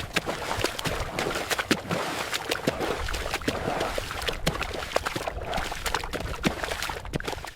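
Quick footsteps running through wet mud, each step a thick squelch with sucking and splattering noise between them. The run cuts off suddenly at the end.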